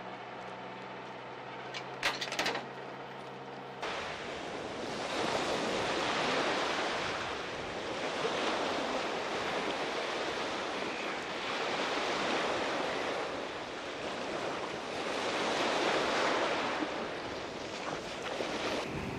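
A tractor engine running with a steady hum, cut off after about four seconds by small waves breaking on a sandy shore, the surf swelling and falling back every few seconds.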